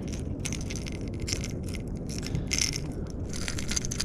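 Pliers and a crankbait's metal treble hooks clicking and rattling as the hooks are worked out of a fish's mouth, a rapid scatter of small sharp clicks that gets busier near the end, over a steady low background noise.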